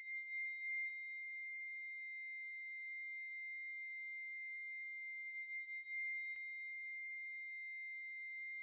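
A steady high-pitched electronic tone held unchanged, with a fainter, higher tone above it, like a sustained ringing in a film soundtrack.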